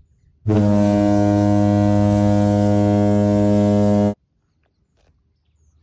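A loud, low, steady horn-like blast that starts about half a second in, holds one unchanging pitch for about three and a half seconds, and cuts off suddenly.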